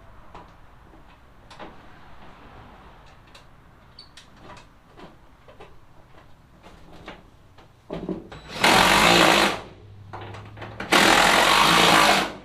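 A power tool run in two short bursts of about a second each, with light clicks and knocks of handling before them.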